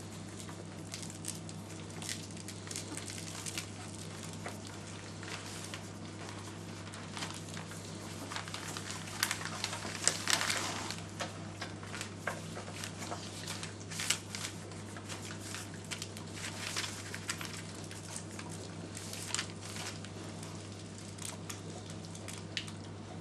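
Flat-coated retriever puppy chewing and tearing at a toy octopus: irregular rustling, crinkling and small clicks, busiest about halfway through, over a steady low hum.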